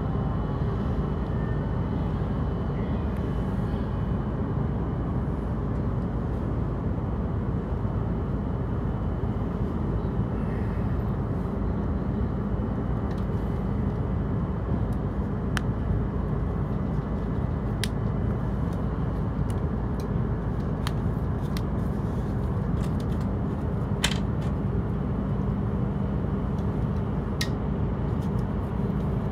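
Steady low hum inside a Hokuriku Shinkansen passenger car standing at a station platform, with a few sharp clicks in the second half.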